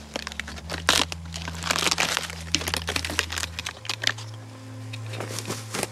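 Twigs and brush snapping and crackling close by, a notch being broken out of the brush for a rifle rest. The crackling is densest in the first three and a half seconds and thins out near the end.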